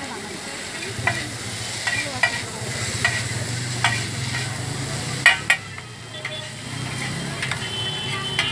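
Two metal spatulas tossing and scraping chow mein noodles on a large flat griddle, with a steady sizzle of frying and sharp clacks of the spatulas striking the metal. The two loudest clacks come close together about five seconds in.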